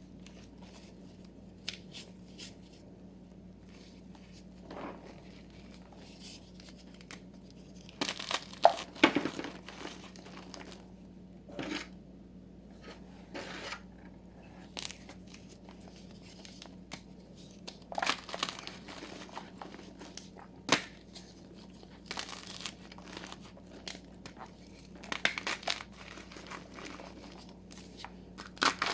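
Blocks of gym chalk crushed and crumbled by hand, giving crunchy, crumbling bursts every few seconds with quieter stretches and a few sharp clicks between them.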